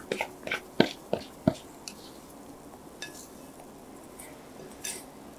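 A spatula scraping and tapping the rim of a glass bowl as melted ice cream is scraped out into another glass bowl: about six light clinks in the first second and a half, then only faint scraping.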